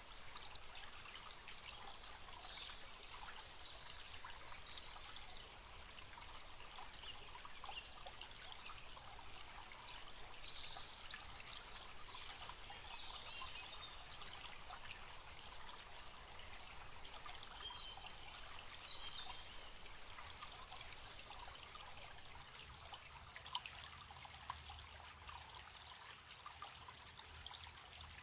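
Forest stream trickling and babbling steadily. Small birds chirp high above the water sound in a few short spells.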